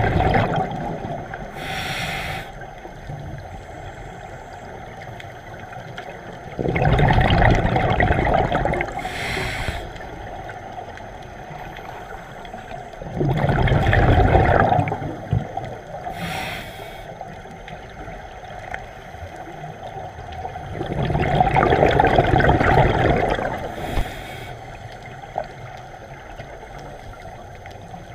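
Scuba diver breathing underwater through a regulator: a short hiss of inhaling from the demand valve about every seven seconds, each followed a few seconds later by a louder, longer rush of exhaled bubbles, three breaths in all.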